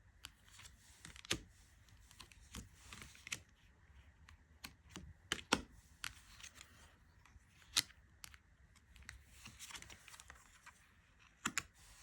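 Tarot cards being handled and laid down on a table: soft sliding and brushing of card stock broken by irregular sharp taps, a few louder ones near the middle and one near the end.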